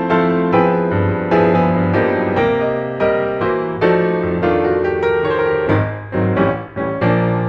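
Piano music: a run of struck notes and chords, each dying away before the next, gentle in character.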